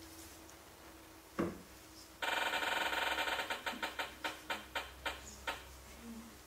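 Electronic sound effect from a laptop: a quick run of bright ringing tones about two seconds in that slows into separate ticks, spaced further and further apart until they stop, as a random-picker wheel does when choosing a student. A single knock sounds a little over a second in.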